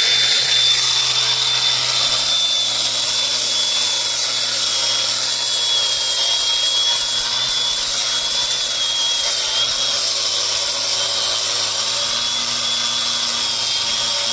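Hand-held power tool running steadily with a high whine, stripping the bare trailer frame back to clean metal before priming.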